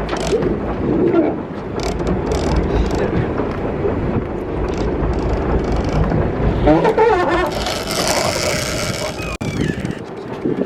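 Wind and water noise on an open fishing boat's deck, with shouted voices twice and a burst of rushing, splashy hiss about eight seconds in, followed by a few sharp clicks near the end.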